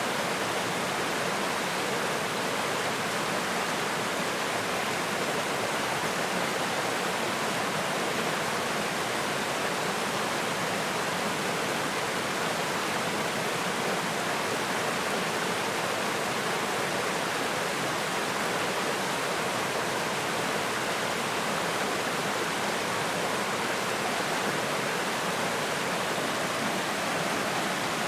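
A small forest stream rushing steadily over rocks: a constant, even wash of water.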